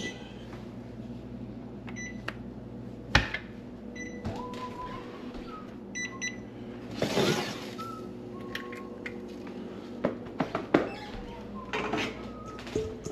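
Kitchen work over a steady electrical hum from an appliance: scattered clicks and knocks of utensils and dishes, two short high beeps, and a brief scraping rustle about seven seconds in.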